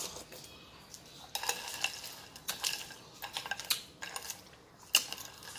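Metal spoon stirring and scraping through crushed ice in a glass bowl of chè Thái, with a string of short clinks and scrapes, along with close eating sounds.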